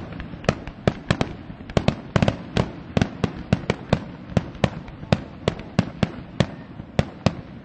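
Aerial fireworks shells bursting in a rapid, irregular string of sharp bangs, about three a second.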